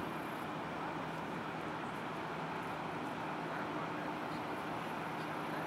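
Steady drone of the self-unloading lake freighter Sam Laud's engines as it passes: a low hum at a constant pitch over an even hiss.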